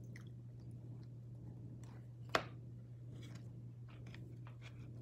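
Faint clicks and small handling sounds of chopsticks working food, with one sharper click about two and a half seconds in, over a steady low hum.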